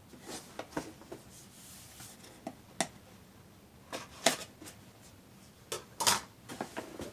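A cardboard subscription box being opened and its contents handled: irregular rustles, scrapes and knocks, the loudest about four seconds in and again about six seconds in.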